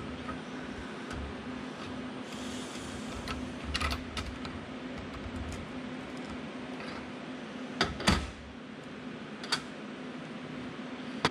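Metal parts of a copier drum unit being handled during disassembly: scattered sharp clicks and light clatter, a small cluster about four seconds in and the loudest pair about eight seconds in, over a steady low hum.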